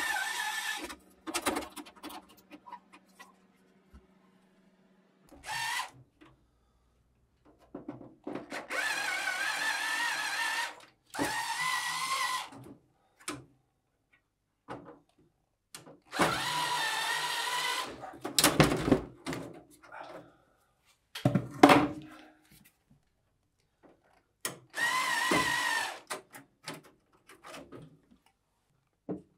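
Small cordless electric screwdriver whirring in about six short runs of one to two seconds each, backing out the screws that hold the circuit boards in a pinball machine's backbox. Clicks and knocks of the boards and screws being handled come between the runs, the loudest a sharp knock past the middle.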